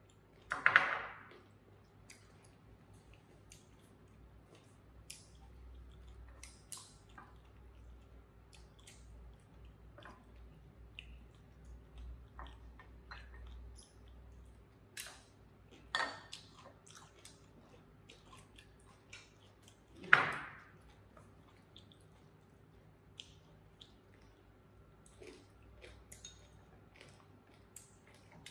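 People eating at a table: quiet chewing and many small clicks of chopsticks against ceramic bowls and plates, with three louder brief sounds about a second in, around the middle and about two-thirds of the way through, over a faint steady hum.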